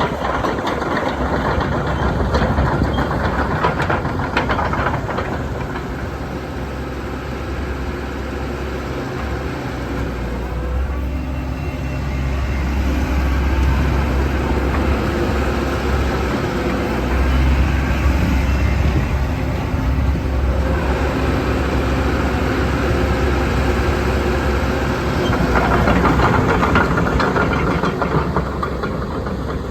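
JCB JS130 tracked excavator's diesel engine running, its level swelling and easing, with clattering near the start and again near the end.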